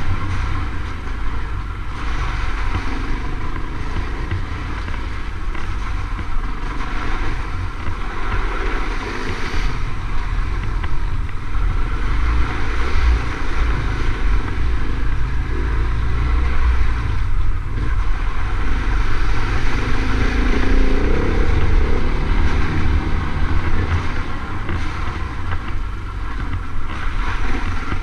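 KTM trail motorcycle engine running while riding, heard through heavy wind rumble on the bike-mounted camera's microphone.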